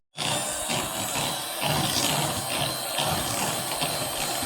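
Electric kitchen mixer motor running steadily, coming in suddenly just after the start.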